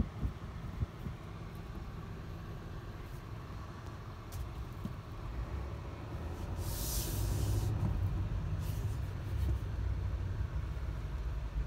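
Low rumble of the GMC Sierra AT4X's engine and drivetrain heard from inside the cab as the truck moves slowly, growing louder about halfway through. A brief hiss lasting about a second comes about seven seconds in.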